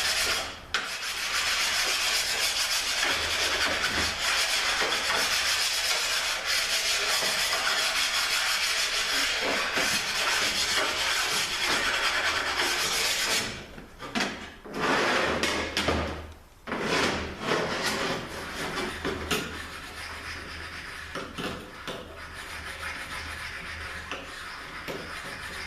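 904 transmission valve body half being flat-sanded, a steady rasping scrape for about half the time, then shorter scrapes with pauses, fainter near the end.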